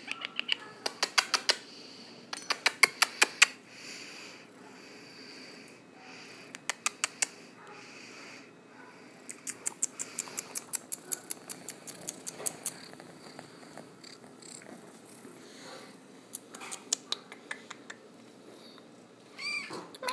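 Kittens in a cage: several bursts of rapid clicking, about eight clicks a second, and one short meow near the end.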